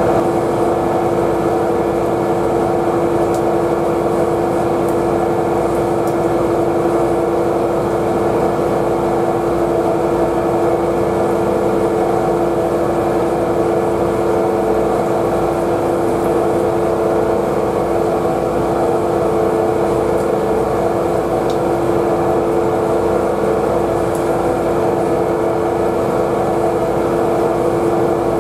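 Steady engine drone with a constant pitched hum.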